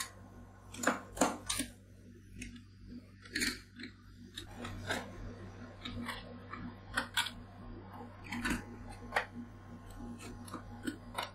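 Metal ice-cream scrapers chopping and scraping blueberry ice cream on a frozen steel cold plate: irregular sharp taps and scrapes, the loudest cluster about a second in, over a steady low hum.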